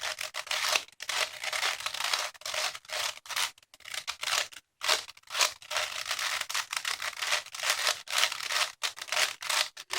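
5x5 Rubik's cube being scrambled by hand: a quick, uneven run of plastic clicks and rasping scrapes as the layers are turned, with brief pauses between turns.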